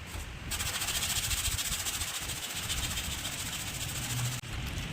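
Steady hiss of compressed air from an air tool, starting about half a second in and cutting off suddenly near the end.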